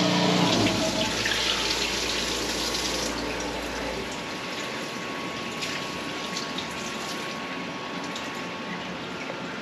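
Honing fluid streaming from the coolant hoses and splashing inside the enclosure of a Sunnen SV-30 CNC vertical hone, as a steady pouring hiss. A low machine hum under it stops about four seconds in.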